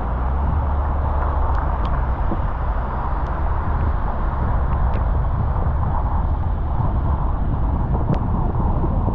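Car driving on rain-wet roads: a steady low rumble of road and engine noise, with a few faint ticks scattered through.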